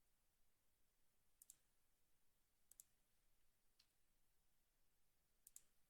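Near silence broken by four faint, sharp clicks, most of them quick double clicks, from someone working at a computer.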